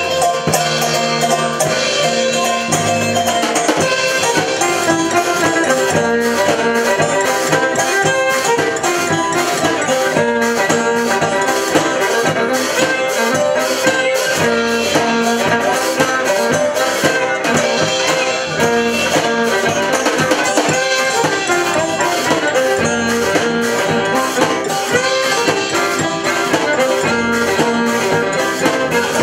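Live band playing a tune: fiddle lead over banjo, acoustic guitar and drum kit, with a steady beat.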